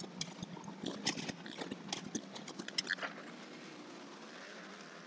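Motorcycle engines running steadily and faintly inside a steel-mesh globe of death, with scattered sharp clicks over about the first three seconds.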